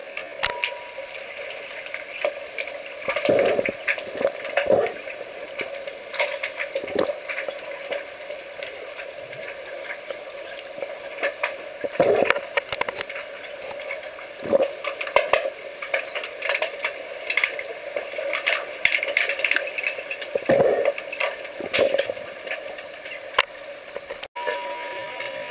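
Underwater sound of an underwater hockey game picked up from inside the pool: a steady bubbling crackle with many sharp clicks and several dull thumps scattered through it.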